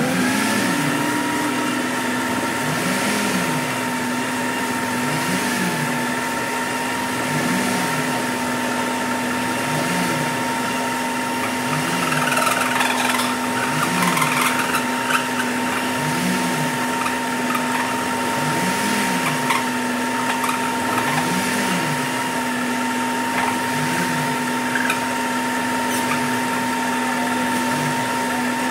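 Multi-Chef food processor running at speed 4, whipping three eggs: a steady motor whine with a low hum that swells and fades about every two and a half seconds.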